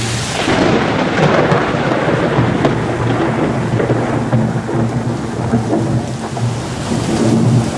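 Torrential rain pouring down in strong, gusting wind, with a continuous low rumble under the hiss of the rain. The rain swells about a second in and stays heavy.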